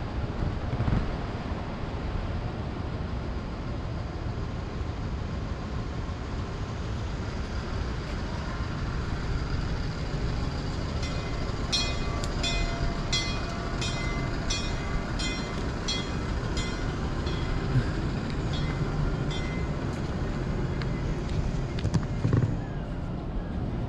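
Steady wind rumble on the microphone with open-air ambience. About halfway through, a high chirping call repeats about twice a second for several seconds, then thins out.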